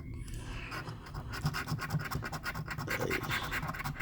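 Scratch-off lottery ticket being scratched: rapid, repeated scraping strokes across the latex coating, with a brief lull just after the start.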